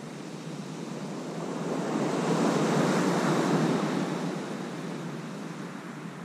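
North Sea surf breaking on the beach: an even wash of noise that swells about two seconds in as a wave comes ashore, then eases off again.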